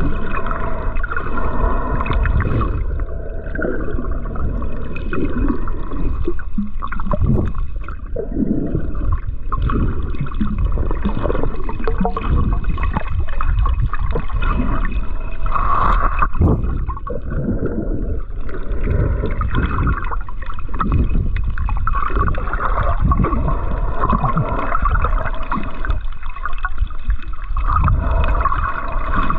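Muffled underwater sound of water gurgling and sloshing around a submerged camera, with a faint steady high tone underneath.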